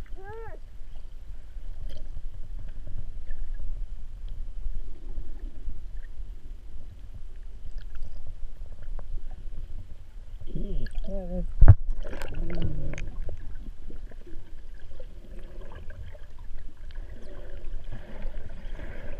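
Muffled underwater sound heard through a submerged camera: a steady low rumble of water moving around the camera, with a sharp knock about twelve seconds in. Two short wavering pitched sounds come near the start and about eleven seconds in.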